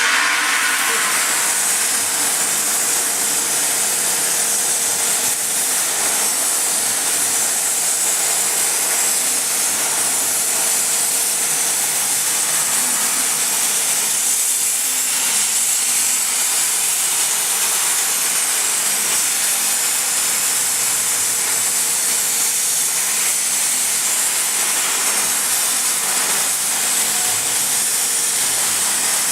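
CNC plasma cutting torch running, a loud steady hiss of the plasma arc and air jet cutting metal. A faint steady hum sits under it for about the first half.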